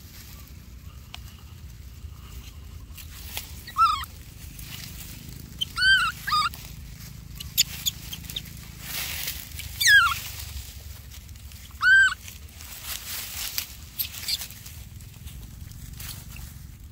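Baby monkey giving about five short, high-pitched cries spaced a few seconds apart, one sliding down in pitch midway, with dry grass rustling between the cries as it crawls.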